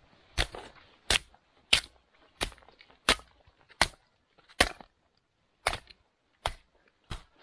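Firewood being chopped with an axe: about ten sharp blows, evenly spaced a little under a second apart.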